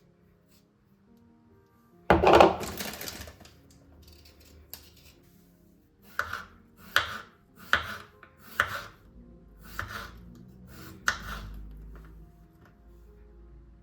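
A knife chopping on a cutting board: about seven strokes at an even pace, each a bit under a second apart, after a louder clattering noise a couple of seconds in. Soft background music plays throughout.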